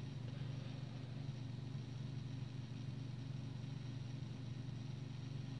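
Faint steady low hum of room tone, with no other sound.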